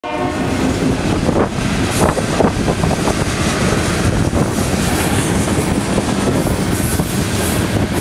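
Freight train tank cars rolling past, their wheels rumbling and clattering steadily on the rails, with gusty wind buffeting the microphone.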